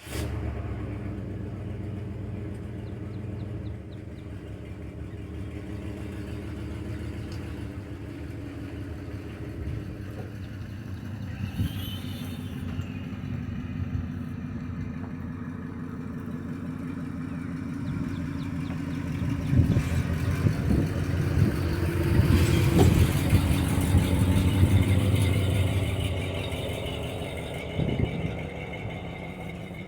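An engine running steadily with a low hum. It grows louder from about two-thirds of the way in, with a few clattering knocks, then eases off again near the end.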